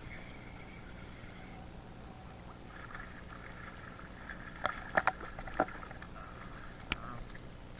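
Water splashing and sloshing as a hooked fish is fought and brought in during a wade, with several sharp clicks in the second half, the loudest about five seconds in.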